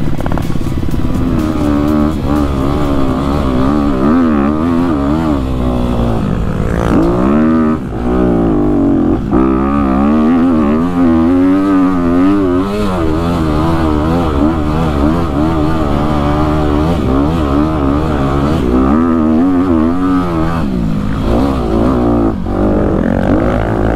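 2020 Honda CRF250RX dirt bike's single-cylinder four-stroke engine, revving up and down as it is ridden along a trail, its pitch rising and falling over and over, with a brief let-off about eight seconds in.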